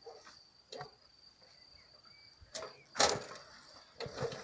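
Crickets trilling in one steady high note, with a few faint clicks and a short, louder scraping rustle about three seconds in.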